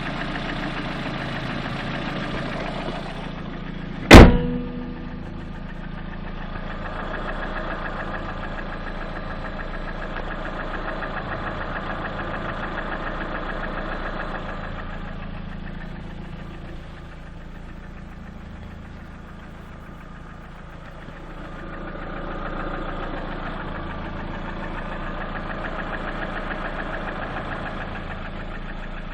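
Lada Priora engine idling warm, with a knocking that the owner takes for piston knock. A single loud sharp bang with a short ringing tail about four seconds in; the engine sound drops for a few seconds past the middle, then comes back up.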